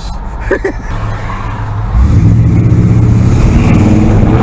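An old car's engine heard from inside the cabin, going to full throttle from a standstill about two seconds in and revving higher as the car pulls away hard. The tires squeal a little on the launch.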